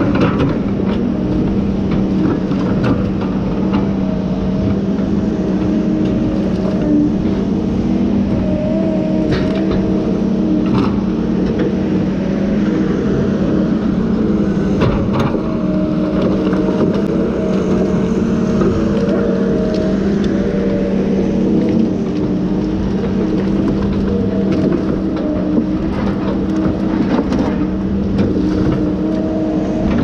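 Tigercat T234B knuckleboom loader's diesel engine running steadily while the boom and grapple work, with a few sharp clanks scattered through as the grapple handles logs.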